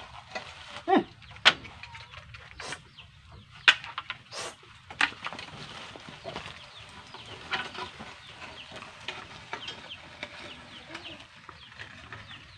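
Chickens clucking, with a few loud sharp knocks in the first five seconds and rapid high chirping through the second half.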